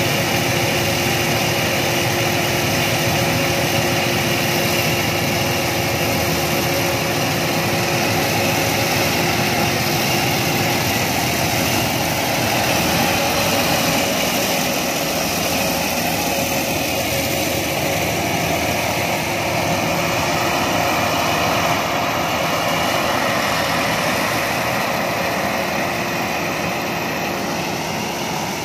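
Yanmar combine harvester running steadily as it cuts rice, a dense, continuous mechanical drone with a steady hum in it.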